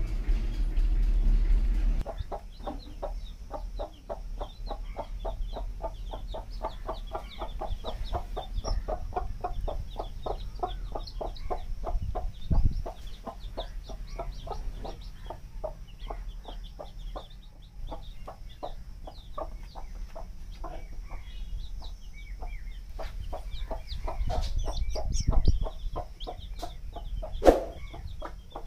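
A mother hen clucking in a quick, steady run of short calls, several a second, while her young chicks peep in thin high chirps. A low rumble fills the first two seconds, and there are a couple of brief knocks.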